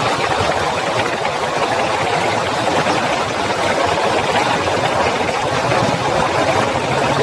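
Heavy rain falling, a dense steady hiss with no breaks.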